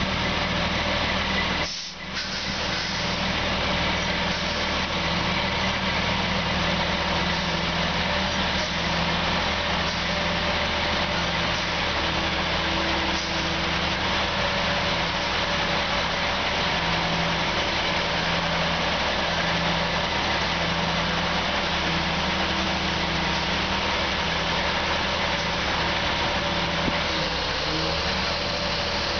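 Heavy diesel engines of a mobile crane and a tractor-trailer running at a low, steady idle, with a brief drop in level about two seconds in.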